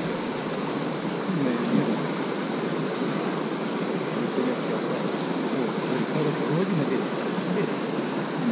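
Mountain river water rushing steadily, a constant even noise with no breaks.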